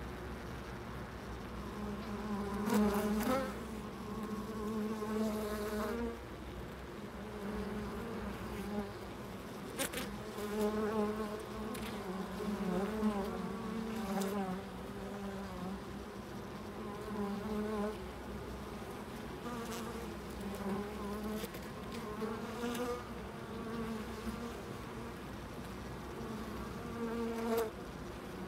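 Honeybees buzzing close by inside the hive, a hum that swells and fades in waves as bees move near and away. A few soft ticks are heard along the way.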